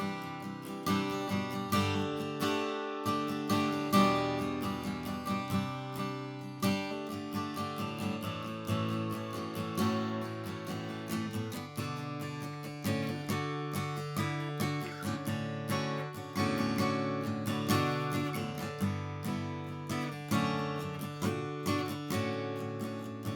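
Collings C100 acoustic guitar, Sitka spruce top with mahogany back and sides, strummed with a pick: chords struck over and over and left ringing.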